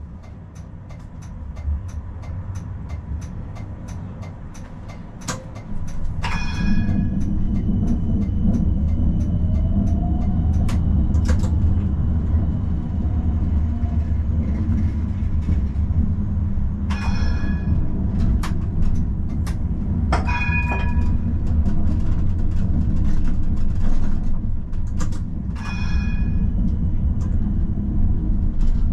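Tram running on its rails with a steady low rumble that grows louder about six seconds in, while the electric drive's whine rises as the tram picks up speed. Several short, sharp metallic clangs with a ringing tail stand out about four times.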